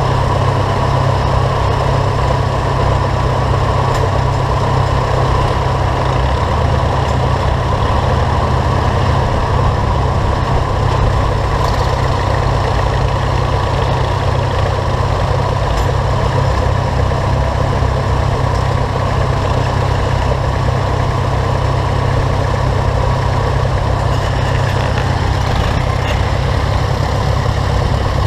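Case Comfort King tractor engine idling steadily close by, a constant deep hum.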